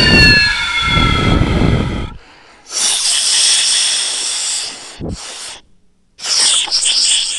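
A person smoking cannabis, breathing loudly close to the microphone: a long breath at the start with a faint falling whistle in it as smoke is blown out, then another long breath about three seconds in, a short one around five seconds, and another beginning just after six seconds.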